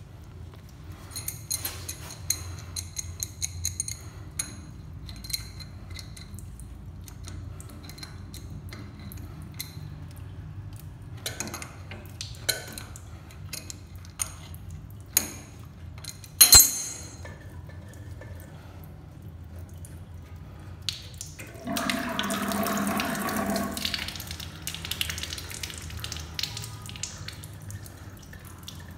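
Metal clinks and ticks of an adjustable wrench working the supply-hose and angle-valve fitting under a washbasin, with one sharp metal clack about halfway through. Then comes a rush of water lasting about two seconds, the loudest sound, with drips around it.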